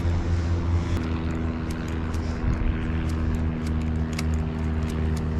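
A motor drones steadily with an even low hum throughout, and a few faint ticks sound over it.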